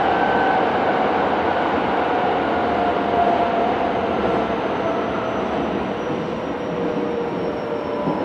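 Kobe Municipal Subway 1000 series train with a Hitachi GTO inverter running, heard from inside the car: a steady rumble of wheels on rail with a whine from the traction equipment that slowly falls in pitch as the train slows.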